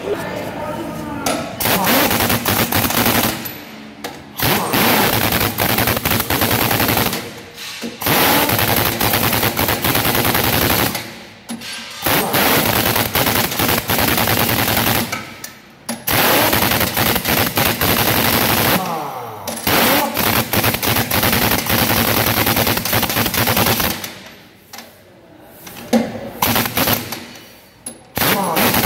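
Pneumatic impact wrench running on a truck's dual rear wheel nuts, in about seven bursts of two to four seconds each with short pauses between them.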